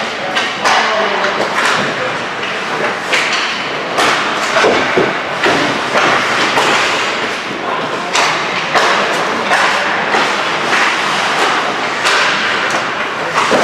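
Hockey pucks cracking off sticks and banging into the boards during an on-ice skate, with frequent sharp knocks at an irregular pace.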